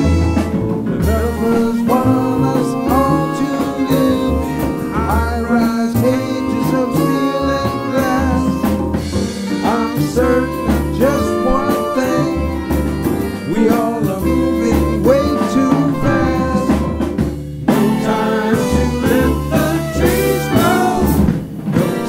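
A song with a lead vocal over a band, with a steady bass and drum pulse underneath. There is a short break about three-quarters of the way through.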